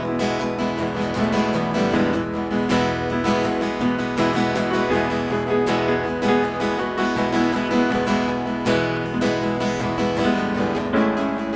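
Acoustic guitar strumming chords in a steady rhythm, an instrumental break in a hymn with no singing.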